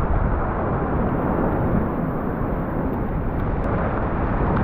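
Steady wind noise on the microphone mixed with the wash of waves surging over a rock ledge.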